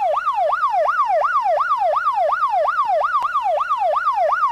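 Electronic emergency-vehicle siren in a fast yelp, its pitch sweeping up and down about three times a second.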